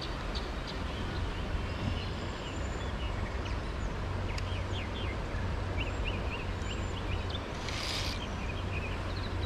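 Steady rush of flowing stream water with low wind rumble, and a small bird singing a run of short chirps through the middle; a brief hiss about eight seconds in.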